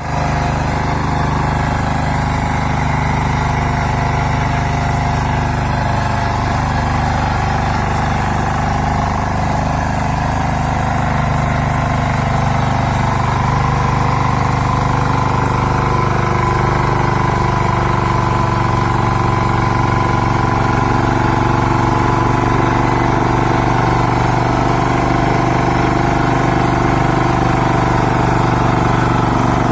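Small four-stroke petrol engine of a power weeder running steadily.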